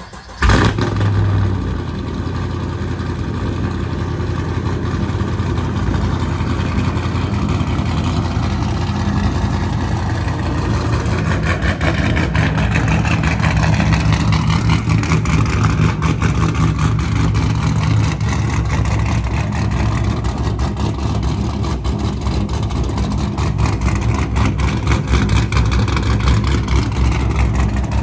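V8 engine of a 2015 Camaro SS catching about half a second in and then running at a steady idle.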